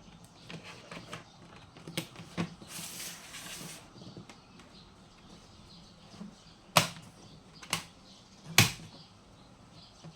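Plastic bottom cover of a laptop being pried off: small clicks and a brief scraping, then three sharp snaps about a second apart as its clips pop loose.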